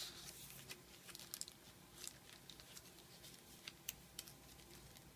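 Paper pages and tags of a thick handmade journal being handled and turned: faint, scattered paper rustles and crinkles, with a few sharper crackles a little over a second in and again near 4 s.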